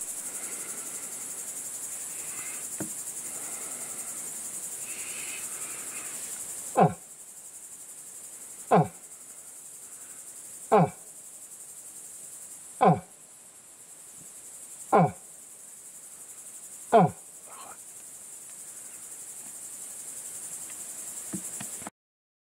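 Insects, likely crickets, chirring steadily in a high, even band. Over them come six loud, short cries, each falling steeply in pitch, evenly spaced about two seconds apart through the middle of the stretch.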